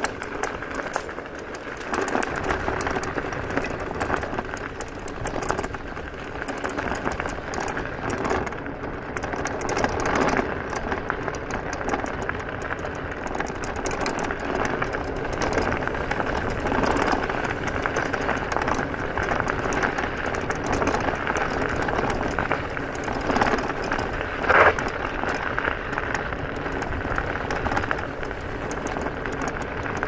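Egret X electric scooter riding over gravel: the tyres crunch and rattle over the loose stones in a steady noisy stream, with one sharper jolt about five seconds before the end.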